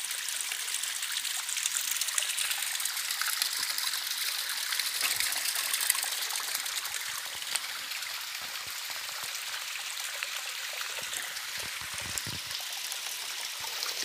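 Running water of a jungle stream: a steady, even rush.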